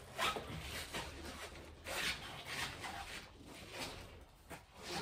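Irregular scraping and rubbing strokes, several in a few seconds, as the old 2-inch PVC drain pipe is worked loose in its chase inside a spray-foamed stud wall.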